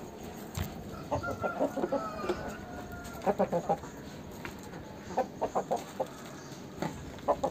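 Aseel rooster clucking in short, quick runs of several clucks, heard about four times.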